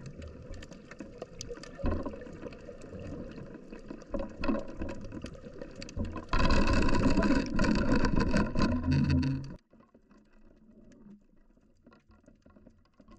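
Muffled underwater sound picked up by a submerged camera: a low rumble of moving water with scattered crackles and clicks. It grows louder for about three seconds past the middle, then cuts off suddenly to near silence.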